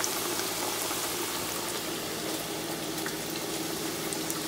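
Battered catfish pieces deep-frying in hot grease in a cast iron pot: a steady sizzling hiss with a few faint crackles.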